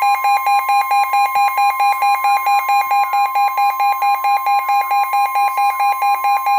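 NOAA Weather Radio severe thunderstorm warning alert: the steady 1050 Hz warning alarm tone, with a loud electronic alarm beeping over it about four times a second from the weather radio.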